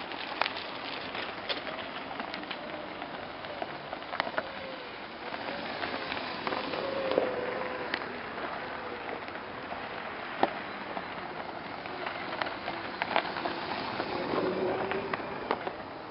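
Tyres rolling over a gravel path: a steady crackling hiss with scattered sharp pops of stones. A faint wavering whine comes and goes in the middle and near the end.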